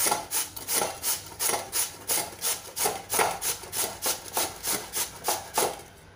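A raw peeled potato is rubbed up and down the coarse side of a stainless-steel box grater. The rasping strokes come in a steady rhythm of about three a second and stop just before the end.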